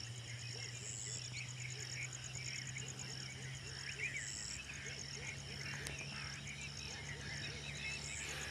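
Frogs croaking in a chorus, about two calls a second, with insects trilling in an even, rapid pulse above them and a steady low hum underneath.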